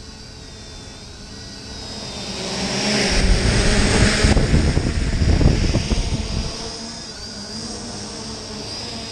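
Y6 multirotor (six propellers on three arms) hovering, its electric motors and propellers giving a steady whine with slightly wavering pitch. It grows much louder as the drone passes low overhead about three to six seconds in, with the low rumble of its rotor downwash on the microphone, then fades back as it moves away.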